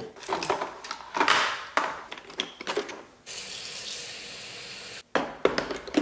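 Plastic parts being handled, with scattered clicks and rustles, then water running steadily from a tap to fill the robot vacuum's water tank. The water cuts off abruptly after about two seconds.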